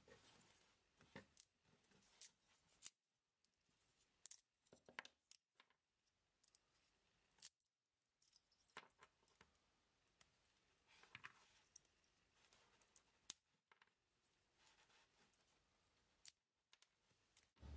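Faint, irregular clicks and crackles of small pieces of thin wood being handled and worked apart by hand at a workbench.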